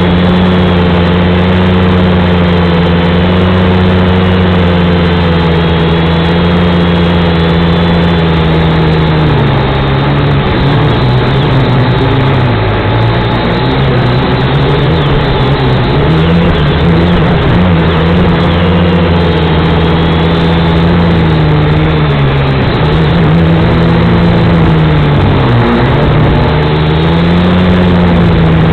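Hubsan V222 quadcopter's motors and propellers buzzing loudly in flight. The pitch holds steady at first, then dips and rises again and again from about a third of the way in as the throttle changes.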